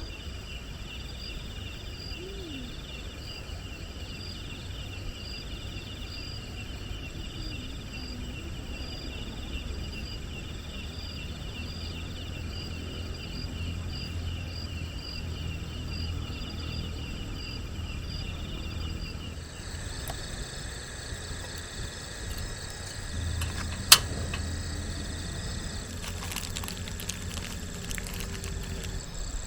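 Insects chirping in fast, even pulsed trills over a steady low wind rumble on the microphone; about two-thirds of the way through the trills give way to a steady high insect drone. A single sharp click comes a few seconds after that.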